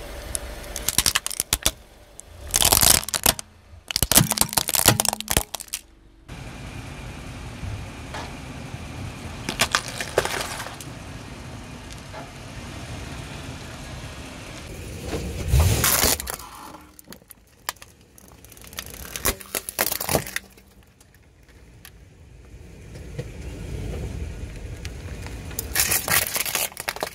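Car tyre rolling over and crushing brittle objects: repeated spells of crackling and snapping every few seconds over a low steady rumble from the car.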